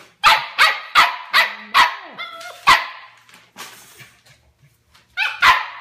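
Seven-week-old Bernedoodle puppy barking in a quick run of about six high, sharp yaps, then a pause and two more near the end: a puppy barking up for attention, wanting to be petted.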